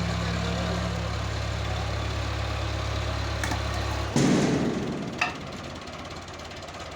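Tractor engine idling steadily, then cutting out abruptly about four seconds in with a loud rush of noise that fades over about a second. A few sharp clicks come just before and after.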